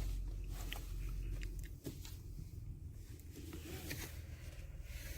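Low steady rumble of a car heard from inside the cabin, with a few faint clicks and taps.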